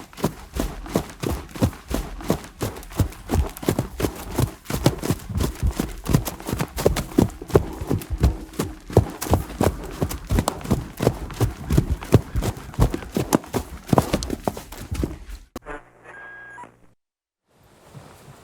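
Horse hooves galloping: a fast, dense, irregular run of hoofbeats that cuts off suddenly about fifteen seconds in. A brief quieter sound and a short gap follow.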